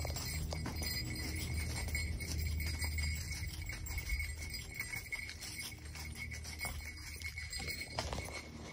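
Tennessee walking horse's hoofbeats on a leaf-littered trail, a steady patter of short clicks, with a continuous metallic jingling, heard from the saddle.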